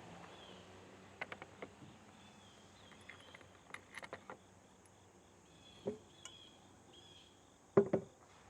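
Scattered light clicks and clinks of small bolt hardware (bolts, washers, nuts) being handled during assembly, with a louder double clink near the end. Faint high chirping runs through the background.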